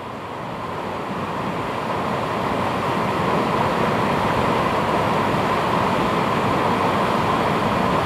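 Waterfall: rushing falling water as a dense, steady hiss that swells over the first few seconds and then holds level.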